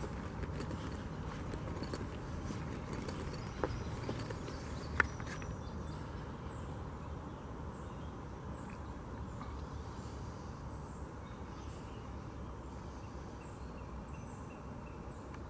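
Footsteps on a dirt forest trail, irregular light crunches with a sharper knock about five seconds in, over a steady low rumble. After that the steps fade out, leaving woodland ambience with faint, short, repeated high chirps.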